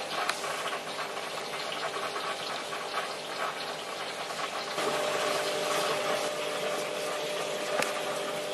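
Water circulating through a marine sump aquarium, a steady flowing and trickling noise. About halfway through, a steady pump hum joins and the sound gets a little louder.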